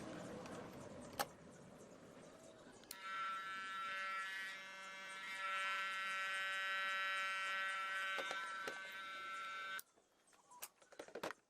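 Repaired electric hair clipper running with a steady buzz for about seven seconds, then switched off abruptly. A sharp click and handling noise come before it starts.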